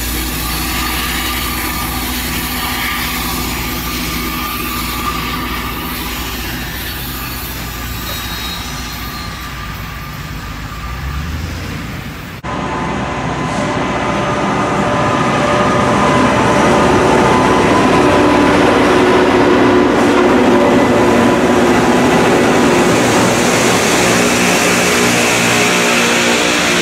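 Rail grinder train's engines running steadily as it approaches along the track. After a sudden cut about twelve seconds in, a louder, dense grinding noise with a steady hum builds over a few seconds and holds: the grinding stones working the rail as the train passes close, throwing sparks.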